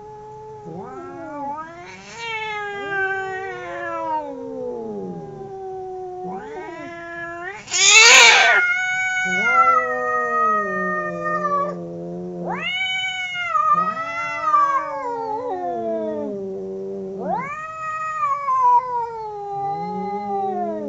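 Two cats caterwauling at each other: long, wavering yowls that rise and fall, often overlapping. The loudest moment is a short, harsh screech about eight seconds in.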